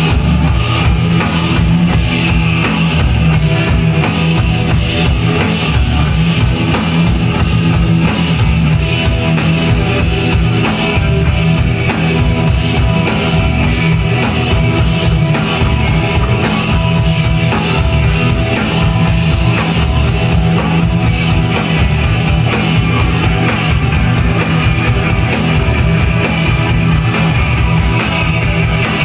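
Loud rock music with a fast, driving drum kit and guitar, played steadily throughout.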